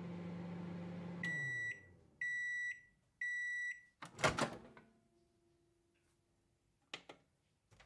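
Microwave oven finishing its cycle: the running hum winds down, then three beeps about a second apart as the timer runs out. The door then pops open with a loud clunk, and a couple of light clicks follow near the end.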